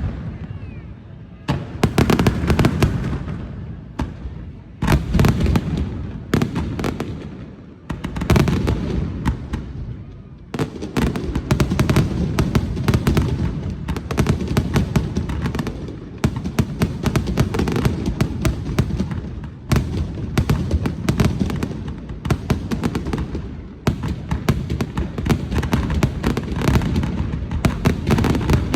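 Aerial fireworks going off: a rapid string of bangs and crackles with a low rumble. The bursts come in waves at first, then grow into an almost unbroken barrage about ten seconds in.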